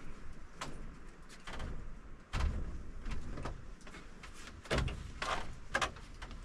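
Bare feet walking across a wooden plank floor, the boards knocking and thudding under each step, about one step a second.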